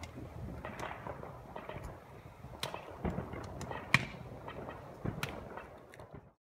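Fireworks and firecrackers going off: a steady crackle with repeated sharp bangs, the loudest about four seconds in. The sound cuts off abruptly near the end.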